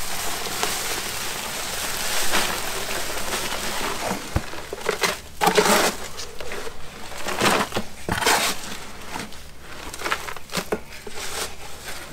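Dry concrete mix pouring out of a crinkling paper sack into a plastic tote, a steady rush for the first few seconds. Then a shovel scrapes and chops through the dry mix in the tote in a series of separate strokes.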